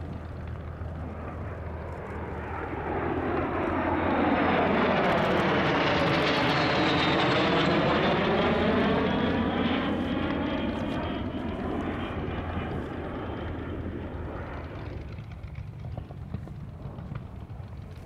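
Lockheed T-33 jet trainer flying past: its jet noise swells for a few seconds, is loudest for several seconds with a sweeping, phasing sound, then slowly fades away.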